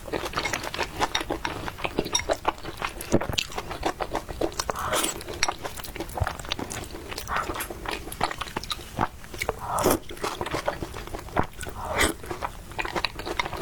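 Close-miked eating: a person biting and chewing food, with many sharp, irregular crunches and mouth clicks.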